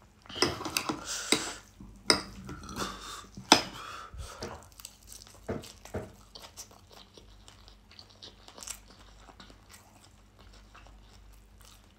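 Fork and knife clicking and scraping on a plate, with close chewing of a mouthful of hash browns; the sounds grow fainter and sparser in the second half.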